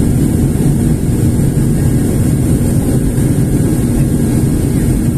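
Jet airliner cabin noise during the climb after takeoff: a loud, unbroken low rumble of engines and rushing air, with a steady low hum running through it.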